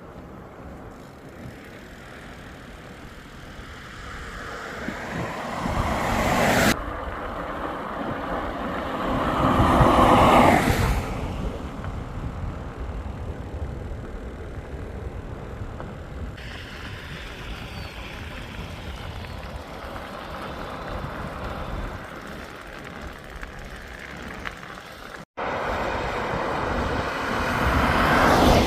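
Road vehicles passing, each swelling up and fading away over a steady rush of road and wind noise. The sound jumps abruptly at a few cuts.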